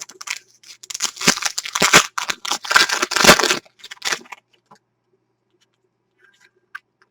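Foil trading-card pack wrapper crinkling and tearing open for about three seconds, followed by a few light clicks of card handling.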